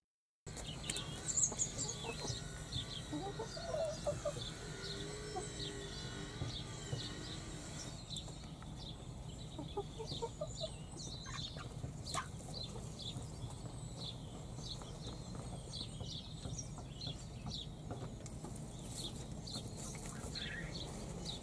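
Pekin bantam hens making soft, low clucking murmurs, most noticeable in the first several seconds, with many short high chirps throughout over a steady low hum.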